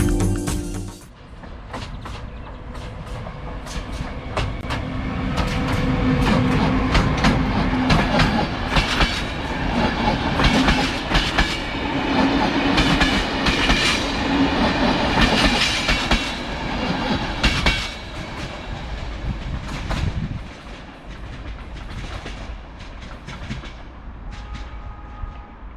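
Passenger train rolling slowly past on a single track, its wheels clicking irregularly over rail joints over a steady rumble and low hum. It grows loudest in the middle and fades away near the end.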